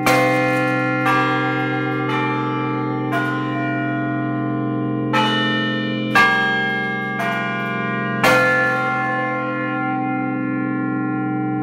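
Large bronze carillon bells of the UT Tower, heard close up in the belfry, being struck in turn: two phrases of four notes about a second apart, with a short pause between. Each stroke rings on and blends into a steady hum, and the last note rings out to the end.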